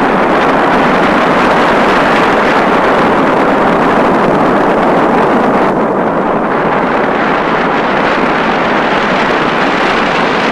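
A large blaze of burning dry vegetation: a steady, loud rushing noise. Its upper hiss drops away a little over halfway through.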